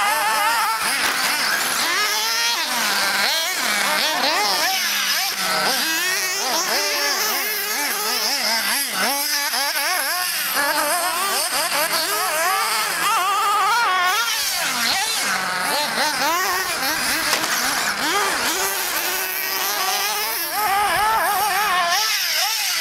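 Radio-controlled cars' motors revving on a dirt track, several at once, their pitch rising and falling quickly with the throttle.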